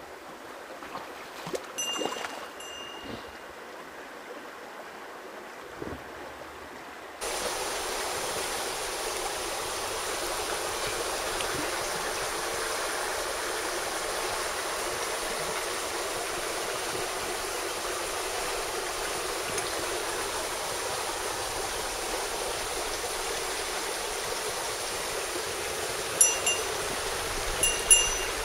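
Mountain stream water rushing steadily, abruptly louder about seven seconds in. Short ringing metallic clinks, like a small bell, sound about two seconds in and twice near the end.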